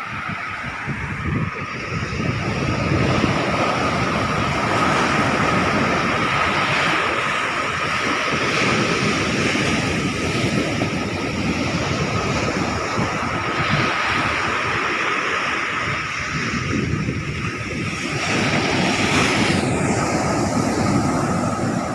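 Ocean surf rushing on the beach with wind buffeting the microphone, swelling louder about two seconds in and again near the end.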